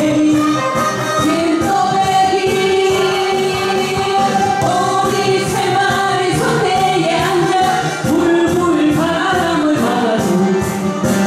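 Two women singing a Korean trot song together through handheld microphones, over an amplified backing track with a steady beat.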